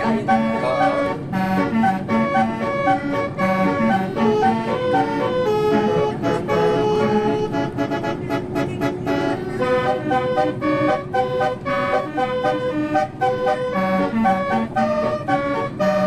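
Bus basuri (telolet) multi-tone musical horn playing a melody in quick, stepped notes.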